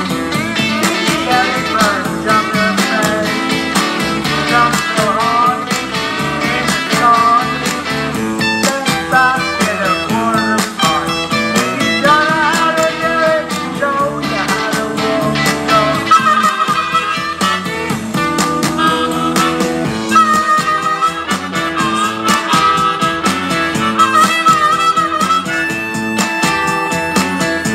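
Blues harmonica played through a hand-cupped microphone, with wavering, bent notes over a steady, rhythmic backing.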